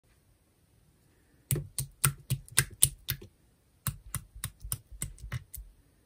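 Slime being worked with a plastic spoon, giving sharp sticky clicks and pops: a quick run of about seven starting about a second and a half in, a brief pause, then about nine more.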